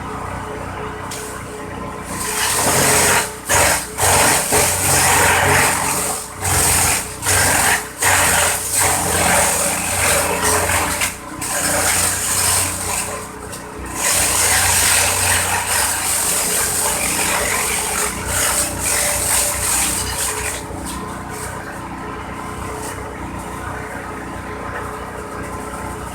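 Engine-driven corn-stalk chopper running steadily; from about two seconds in, stalks are fed in and shredded with a loud, rough, uneven chopping noise that keeps dipping briefly. About twenty seconds in the chopping stops and the machine runs on empty.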